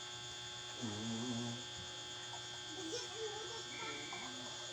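Steady electrical hum with several held tones, under faint low voices: a short held vocal sound about a second in and quiet murmuring near the end.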